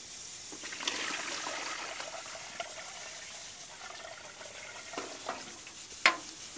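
Water poured from a stainless bucket into a canvas bucket shower, splashing for a few seconds from about a second in. A few knocks follow, the sharpest near the end.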